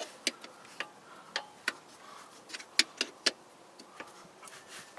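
Scattered sharp metal clicks and taps of vise grips being worked onto the threads of a car's tie rod, about a dozen, irregularly spaced.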